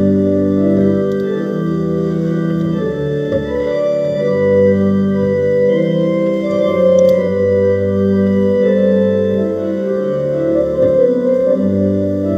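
Pipe organ playing a tune in held chords over a bass line, the notes changing every second or two.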